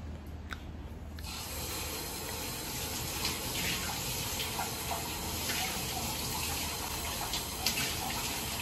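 Water tap turned on about a second in, running steadily into a sink, with a few light knocks of dishes being handled.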